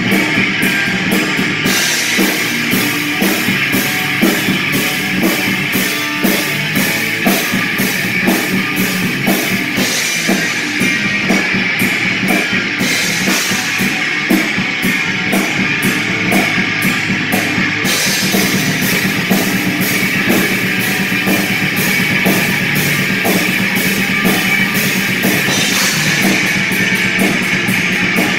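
Live rock band playing: electric guitar over a full drum kit, with the cymbals thinning out and coming back a few times.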